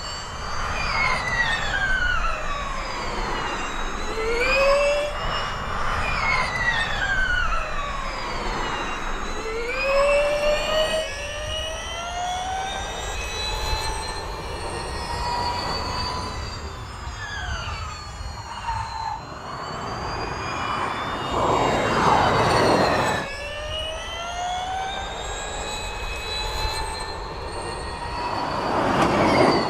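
The Porsche 99X Electric Formula E car's electric drivetrain whines, the pitch rising as it accelerates and falling as it slows, over tyre and wind rush. It passes close twice with a louder rush, about two-thirds through and again near the end.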